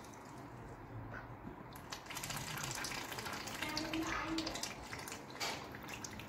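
White domestic ducks splashing and dabbling in a plastic tub of water. The splashing and sloshing starts about two seconds in, with one sharper splash near the end.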